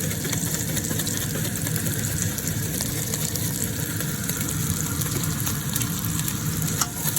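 Chicken pieces frying in olive oil in a pan, a steady sizzle with fine crackling over a low steady hum.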